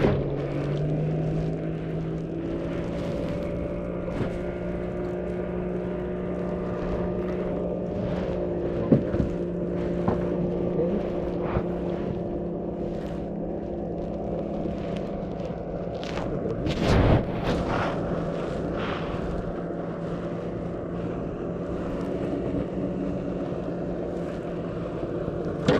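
A motorboat engine drones steadily, its pitch stepping up about a second in. A hooked largemouth bass splashes at the surface at the start, and a few sharp knocks follow, the loudest about two-thirds of the way through.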